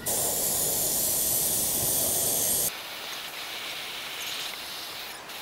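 Paasche hobby airbrush spraying Duracoat paint, a loud hiss of compressed air and atomised paint lasting a little under three seconds that cuts off suddenly; a fainter hiss carries on afterwards.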